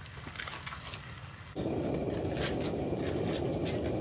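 A few light clicks and knocks, then about one and a half seconds in a steady sizzle starts suddenly and keeps going: diced pike and eggs frying in a hot cast iron pan.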